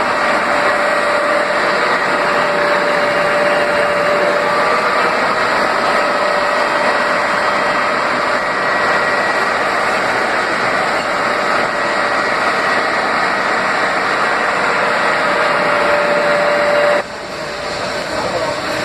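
Friction stir welding machine running during a weld on a T joint, a steady machine noise with a whine over it. About 17 s in the whine stops and the noise drops to a quieter run.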